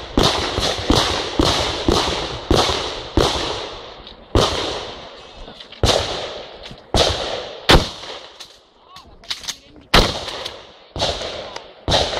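Rapid shotgun fire: a long string of about twenty shots, each trailing off in an echo. The shots come about two a second at first, then in quicker clusters with short gaps, and there is a brief lull of lighter clicks about eight seconds in.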